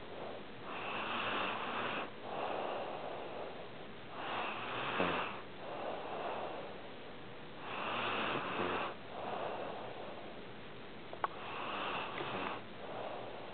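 A sleeping pet snoring: slow, noisy breaths in and out, about four breath cycles, with a small click near the end.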